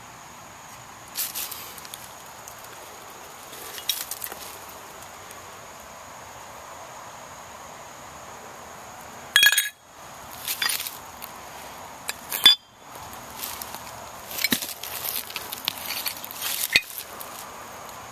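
Broken ceramic and glass shards clinking against each other as they are picked up and handled. There are scattered sharp clinks, the loudest about nine and a half seconds in with a brief ringing, another about twelve and a half seconds in, and a quick run of small clinks near the end.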